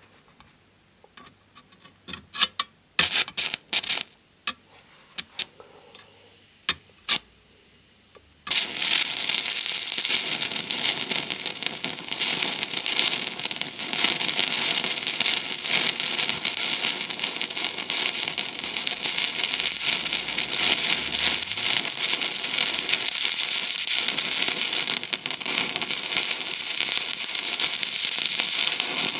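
A homemade battery-powered stick welder, its current limited by a water-bath liquid rheostat: a few short, sharp crackles as the rod is touched to the workpiece, then about eight seconds in the arc catches and runs as a steady, dense crackling sizzle.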